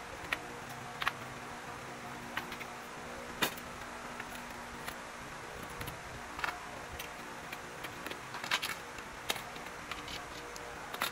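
Light wooden knocks and clacks as pine strips are shifted and tapped into place against each other on a concrete floor, coming irregularly every second or so, over a steady low hum.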